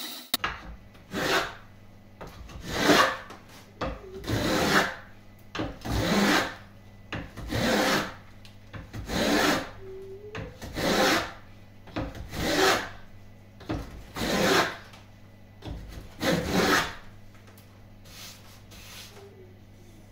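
Wooden plough plane cutting a groove along a pine strip. It makes about a dozen separate rasping push strokes, roughly one every second and a half.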